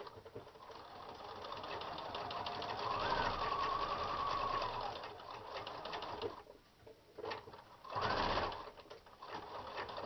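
Electric domestic sewing machine stitching through layered cotton fabric and batting, back-stitching over one part of the seam a couple of times to reinforce it. It runs for about six seconds, getting louder as it speeds up, stops, then gives a short burst about eight seconds in.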